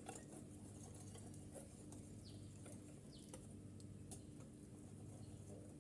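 Near silence: room tone with a faint steady hum, a few faint soft ticks and two brief faint high chirps.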